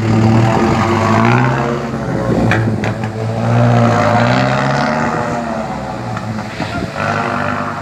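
Mitsubishi Fuso light truck running through its remote-controlled valve 'singing' exhaust as it pulls away, the engine note climbing and dropping back twice with the gear changes.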